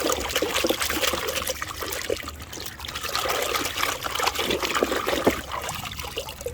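Water pouring and trickling over a plastic toy dump truck as it is washed, with small knocks and clatter of the plastic being handled.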